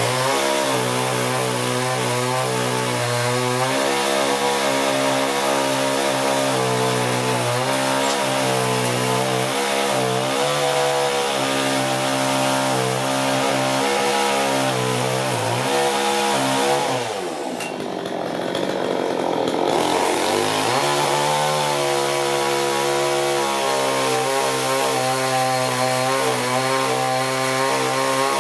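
Chainsaw cutting through firewood logs. The engine runs at high revs, its pitch dipping slightly as the chain bites. About seventeen seconds in it drops to idle for about three seconds, then revs back up and cuts again.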